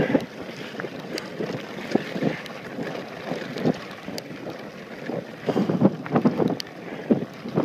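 Mountain bike running fast down a dirt trail: wind buffeting the microphone, with irregular knocks and rattles from the bike jolting over bumps, busier and louder near the end.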